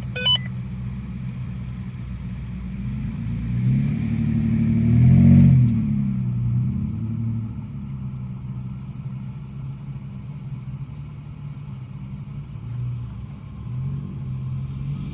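Off-road SUV or pickup engine running at low revs, revving up briefly about four seconds in and settling back to a steady low drone.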